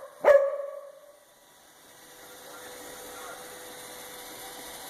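A dog gives one sharp bark just after the start, the last of a short run of barks. After it comes a faint, steady hum with a thin, even tone.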